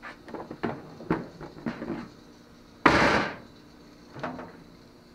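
Knocks and clunks as a sliding glass patio door is handled, with one louder, noisy swish lasting about half a second roughly three seconds in.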